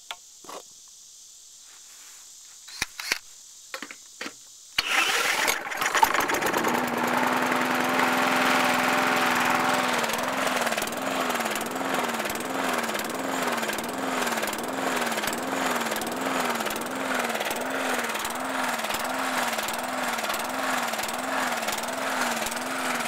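A few knocks, then about five seconds in a Briggs & Stratton 450 series lawn mower engine starts and runs. From about ten seconds in, its speed rises and falls in a steady rhythm, a little more than once a second: the engine is surging, which the owner puts down to a bent governor spring.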